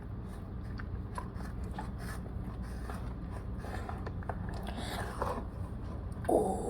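Fluffy slime being stirred in a container: faint, irregular scraping with light clicks of the stirring utensil against the container.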